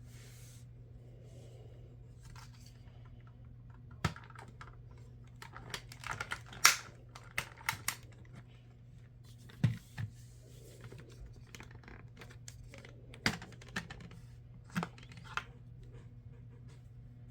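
Irregular sharp clicks and knocks of hard parts being handled, about a dozen of them, mostly between about 4 and 15 seconds in, over a steady low hum.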